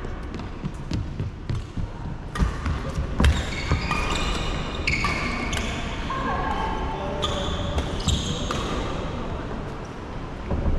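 A few sharp smacks of badminton rackets hitting a shuttlecock, then sports shoes squeaking repeatedly on a wooden court floor through the middle, all echoing in a large hall.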